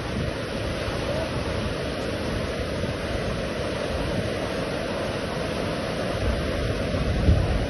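Ocean surf breaking and washing up a sandy beach in a steady rush, with wind rumbling on the microphone, strongest near the end.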